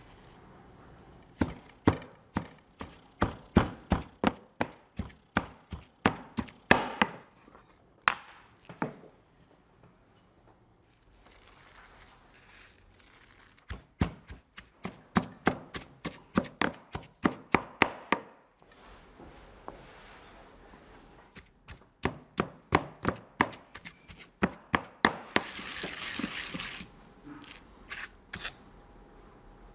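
Stone pestle pounding basil leaves into a paste in a heavy stone mortar: runs of sharp knocks, about two to three a second, with pauses between runs. Near the end there is a short burst of harsh noise.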